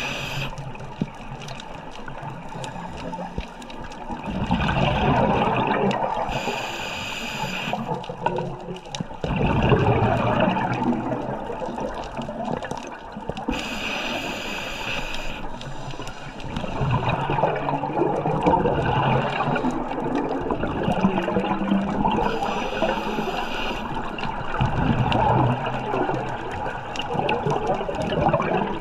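Scuba diver breathing through a regulator underwater: a short hissing inhale about every seven to nine seconds, each followed by a longer rush of gurgling exhaled bubbles.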